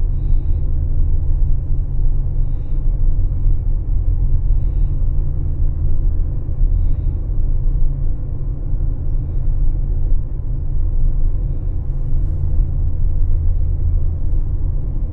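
Steady low rumble of a car driving at low speed: road and engine noise. Faint short high chirps come every couple of seconds through the first half.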